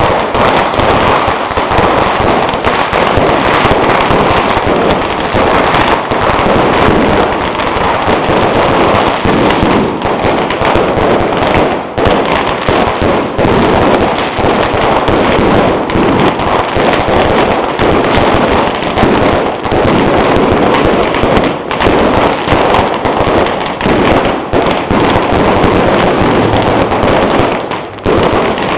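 Fireworks going off in a dense, continuous barrage of bursts and crackling, the pops overlapping with hardly a gap and dipping only briefly near the end.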